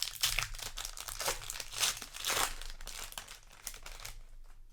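A plastic foil booster pack wrapper crinkling and tearing as it is pulled open by hand. The crackling comes in quick irregular bursts and thins out in the last second or so.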